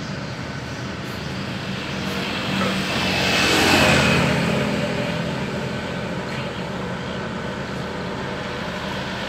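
A motor scooter passes close by, its engine noise swelling to loudest about four seconds in and then fading. Under it, a truck engine runs steadily, powering the crane truck's hydraulics.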